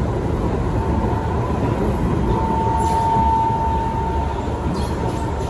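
Inside a Kawasaki Heavy Industries C151 metro car while the train runs: a steady low rumble from the wheels and running gear, with a thin high whine that comes and goes and is strongest about halfway through, and a couple of brief clicks.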